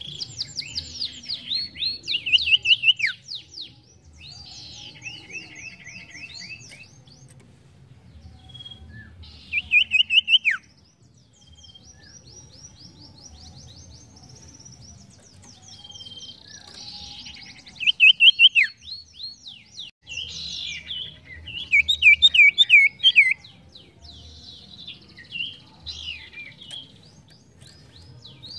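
A caged sirtu singing: loud bursts of rapid, falling chirps strung into trills a second or so long, four times, with softer chirping in the gaps between.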